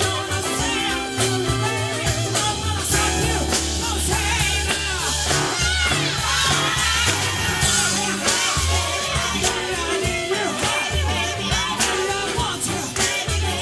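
Live band playing a soul/rock number, with singing over bass, drums and guitar.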